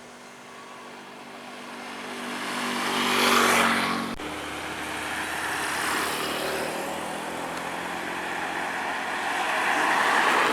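Heavy road vehicles driving past, engine hum under a rush of tyre and wind noise. The first swells to a peak about three seconds in and drops off abruptly a moment later; a second vehicle swells past near the end.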